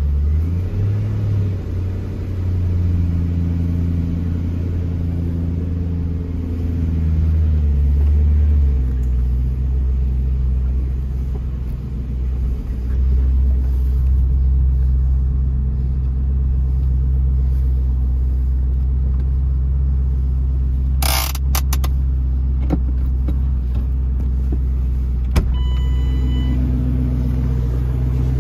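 The Ford GT's 5.4-litre supercharged V8 idling steadily after a cold start, heard from the cabin; its low note shifts down about nine seconds in. A brief sudden noise comes about two-thirds of the way through, then a click and a short electronic beep near the end.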